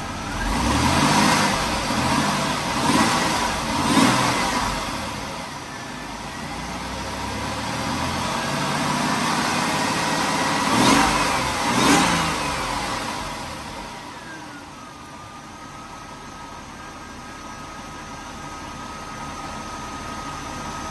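1995 Jaguar XJR's supercharged 4.0-litre straight-six, still cold from several days of sitting, revved from idle: three quick blips in the first few seconds, a slower climb held for a few seconds, two more sharp blips, then it settles back to a steady idle. No supercharger bearing noise stands out, which the owner takes as a sign the bearing is sound.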